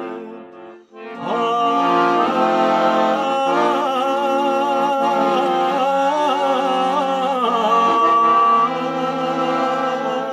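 Piano accordion accompanying a man singing a slow, ornamented Balkan folk song. The music drops away briefly about a second in. Then the voice enters with long, wavering melismatic lines over the accordion and holds a long high note near the end.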